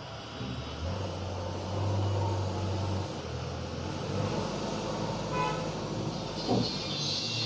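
Street traffic: a motor vehicle engine running close by, with a short horn toot past the middle.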